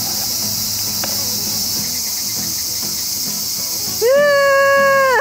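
Steady high-pitched chorus of summer insects. About four seconds in, a high voice gives one long held call of about a second, as a child slides down a grassy slope.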